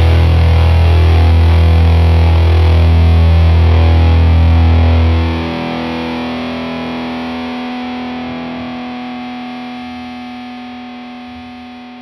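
Outro music: a distorted electric guitar chord held and left to ring. The heavy low end cuts off about halfway through and the rest of the chord fades away.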